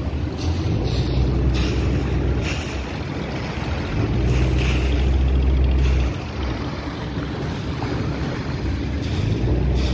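Small fishing boat's engine running, its low hum swelling about four seconds in, dropping at about six seconds and rising again just before the end as the throttle is worked. Propeller wash churns the water alongside the hull.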